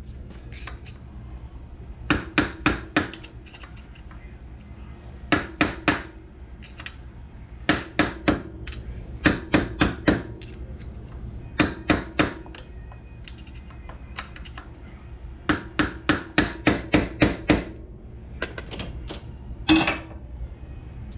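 Hammer tapping on metal in quick bursts of three to eight blows, a few seconds apart, each strike ringing slightly. There is one louder single strike near the end.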